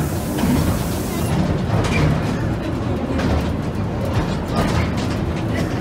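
Small open-sided rail carriage running along the track: a steady rumble of steel wheels on rail, with irregular clicks and knocks from the wheels and rail joints.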